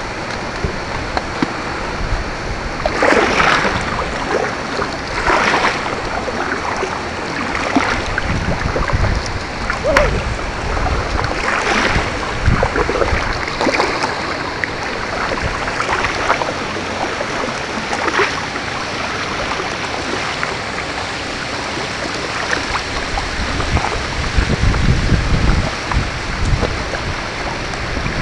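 Kayak paddle strokes splashing in the water every two to four seconds, over a steady wash of moving water.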